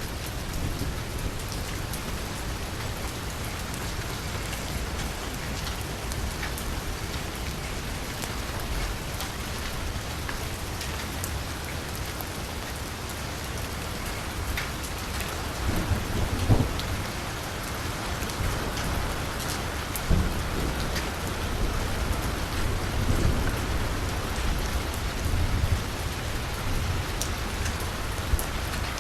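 Steady rain falling on a street, with scattered drop clicks and a few low rumbles about halfway through.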